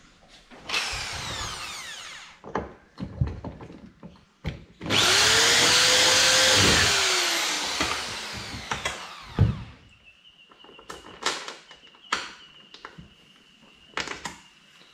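Power drill boring a hole in an aluminium boat gunwale: a short run about a second in, then a longer loud run around five seconds in, the motor pitch dropping as it winds down. Scattered clicks and knocks follow.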